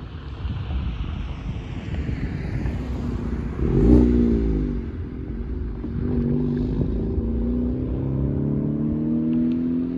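Honda Civic Type R hatchback driving past close by, loudest about four seconds in. Its engine note then climbs steadily as it accelerates away.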